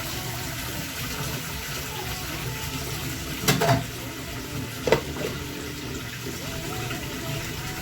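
Water running steadily from a tap, with two sharp knocks about three and a half and five seconds in.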